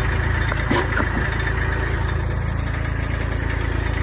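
Kubota B7500 tractor's three-cylinder diesel engine running steadily at idle, with a couple of sharp knocks a little under a second in as the snowblower attachment is worked into place.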